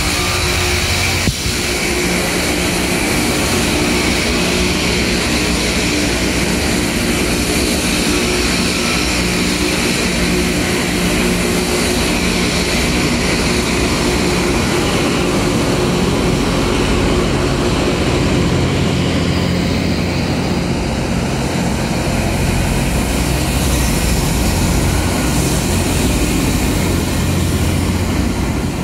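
Loram RG-404 rail grinder at work: a steady, loud mechanical drone, an engine hum under a wide hiss, with one sharp click about a second in.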